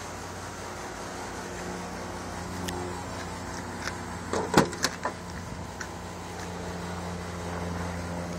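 Driver's door of a 1998 Subaru Forester being opened: a quick cluster of latch and handle clicks with one loud knock about four and a half seconds in, over a steady low hum.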